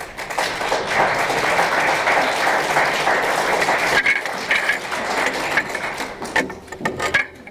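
Audience applauding: a dense patter of many hands clapping that builds over the first second, holds steady, and dies away near the end.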